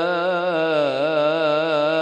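A single male voice chanting Coptic liturgical chant: one long drawn-out vowel, its melody wavering up and down in small ornamented turns without a break.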